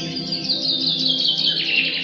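Birdsong: a quick run of chirps stepping down in pitch, over soft background music with long held notes.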